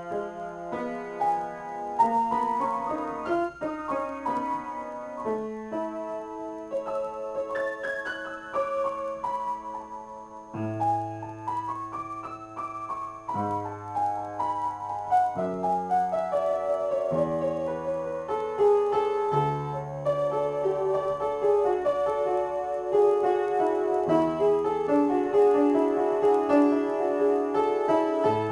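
Solo upright piano improvisation: melodic lines over held bass notes, with a rising run a little before halfway, and the playing growing fuller and louder toward the end.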